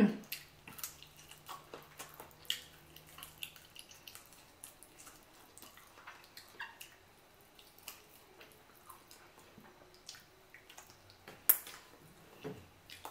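Close-miked chewing of boiled chicken: irregular wet mouth clicks and lip smacks, with sharper smacks about two and a half seconds and eleven and a half seconds in.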